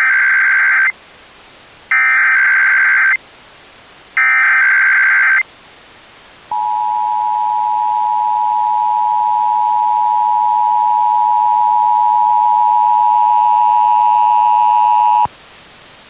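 Emergency Alert System SAME header: three bursts of data tones, each about a second long with about a second between them. Then the EAS attention signal, a steady two-tone 853 and 960 Hz sound held for about nine seconds, slowly getting louder before it cuts off suddenly. Together they announce a Required Weekly Test.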